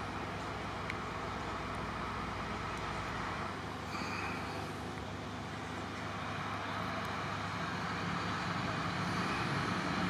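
Steady outdoor background noise: a low rumble and even hiss with no distinct events.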